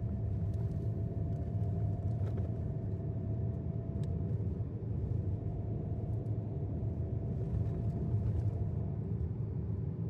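Steady low rumble of a moving vehicle, like road noise heard inside a car, with a faint steady hum over it and a few faint ticks.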